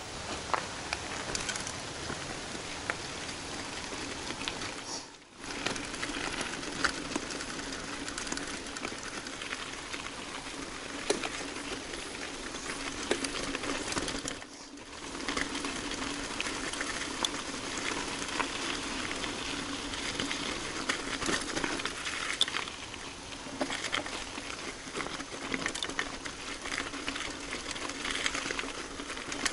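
Mountain bike being ridden over a rough trail: steady tyre noise with a constant patter of small clicks and rattles from gravel and the bike, dipping briefly twice.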